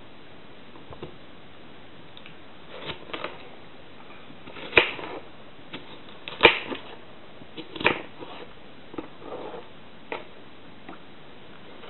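A kitchen knife slicing soft peeled fruit on a wooden cutting board: a scatter of light knocks and clicks as the blade meets the board, with three sharper knocks near the middle.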